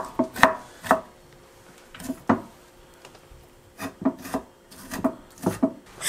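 Kitchen knife dicing carrots on a small wooden cutting board: short knocks of the blade on the wood, about ten in small irregular groups with pauses of a second or more between them.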